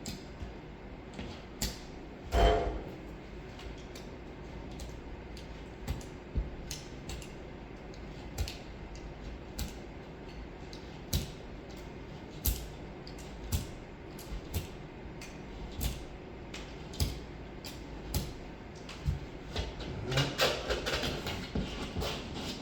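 Hand work on drywall around a cut-out hole: scattered light clicks and knocks about once a second, with a louder knock a couple of seconds in and a stretch of scraping and rubbing near the end.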